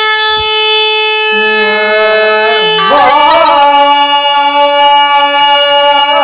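Laz tulum, the Black Sea bagpipe, playing: a steady held note, then a shift to a new pitch and a louder passage about three seconds in.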